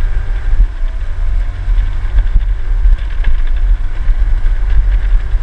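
Motor scooter running while ridden over a bumpy gravel road: a loud, steady low rumble with small scattered rattles.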